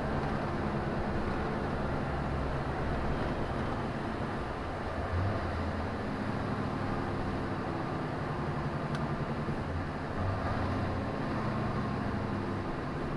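Steady engine and road noise of a large vehicle, heard from inside the cab while driving, with the engine note shifting a couple of times as it slows for a roundabout.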